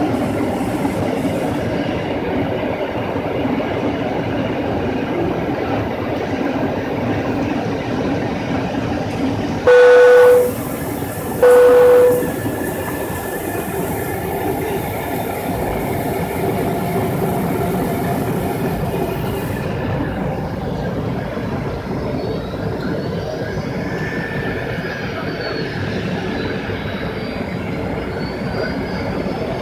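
Steady airliner cabin noise from the engines and airflow during descent. About ten seconds in, two loud identical steady tones sound, each well under a second long and about a second apart.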